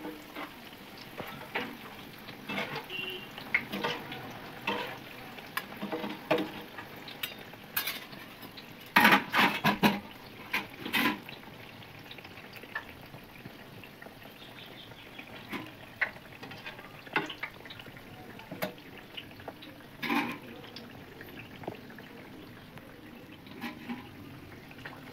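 Pua batter fritters deep-frying in hot oil in a kadhai, a steady sizzle, with a metal slotted spoon clinking and scraping against the pan. The loudest knocks come in a cluster about nine to eleven seconds in and once more about twenty seconds in.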